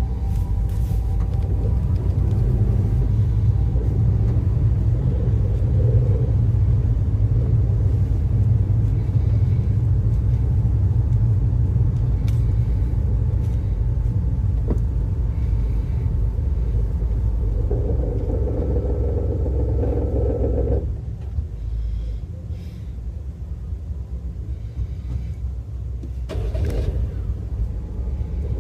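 Steady low rumble of a 2017 Toyota Pixis Mega, with a midrange hum joining it shortly before the rumble drops off sharply about 21 seconds in; it rises again a little near the end.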